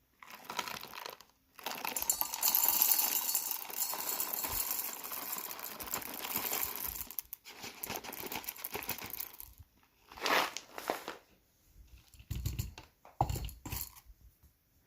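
Crinkling and rustling as things are handled, dense for the first half and patchier after, with a few soft knocks near the end; no grinder motor is running.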